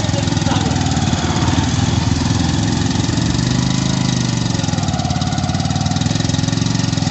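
Motorcycle engine running steadily under load while towing a tractor on a rope, its note shifting a little around the middle.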